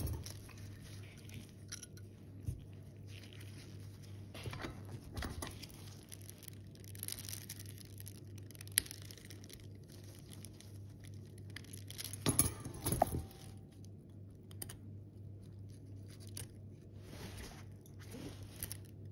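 Small clicks and taps of watchmaker's tools on tiny metal parts as the case clamp screws are taken out and the movement is handled, with a cluster of louder clicks about twelve seconds in. A steady low hum runs underneath.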